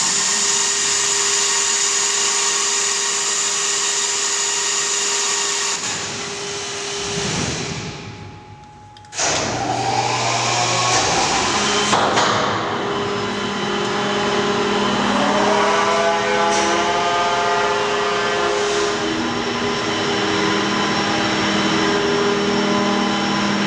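Nike Hercules missile launcher elevator machinery running with a steady mechanical whirr. It dies away and nearly stops about eight seconds in, then starts again suddenly with a different, wavering whine and a sharp knock a few seconds later.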